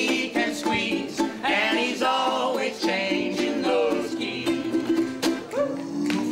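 Acoustic swing trio playing: ukulele strumming over a walking upright bass, with a snare drum hit with sticks and a voice singing the melody.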